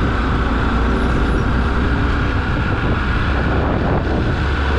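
Motorcycle being ridden at about 30 km/h, its engine running steadily under a constant low rumble of wind and road noise.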